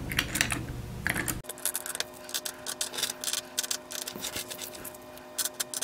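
Pennies clicking and clinking as they are picked up and stacked into the holes of a 3D-printed plastic pendulum bob: an irregular run of small, sharp clicks.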